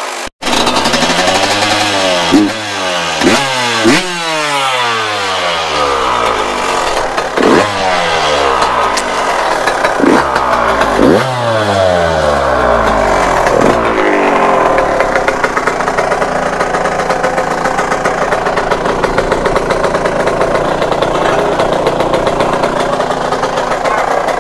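Yamaha YZ125 two-stroke single-cylinder engine, just started for the first time, being blipped: about seven quick revs that each fall away again, then running more steadily for the second half.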